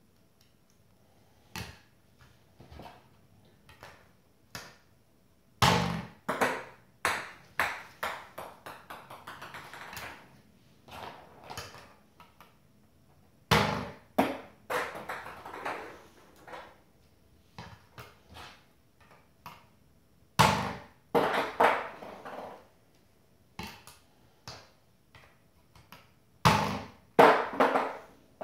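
A small 3D-printed catapult fired four times, each shot sending a small hard projectile clattering onto a hardwood floor. Each shot is a sharp strike followed by a string of bounces that come quicker and quieter until they rattle out. Light clicks fall between the shots as the catapult is reset by hand.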